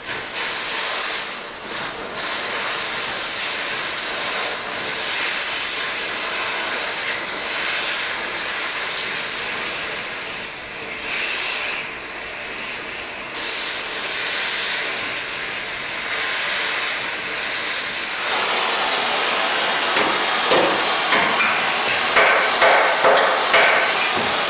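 Oxy-acetylene cutting torch hissing steadily while cutting apart a truck frame. The hiss changes in tone about two-thirds of the way through, and near the end it is broken by a quick series of pulses.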